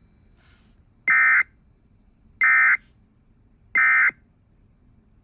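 Emergency Alert System end-of-message from a weather radio: three short bursts of SAME digital data tones, evenly spaced about 1.3 seconds apart, marking the end of the broadcast warning.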